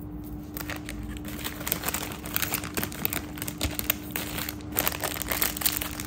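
Thin plastic jewellery pouches crinkling and rustling as they are handled: a run of small irregular crackles, over a faint steady hum.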